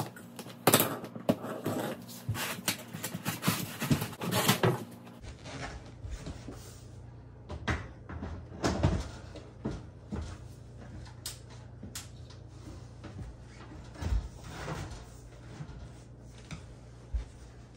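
Clatter and knocks of a vacuum hose and its attachments being gathered up off a tile floor, then scattered knocks and a thud as a range oven door is opened and shut. A steady low hum starts about five seconds in.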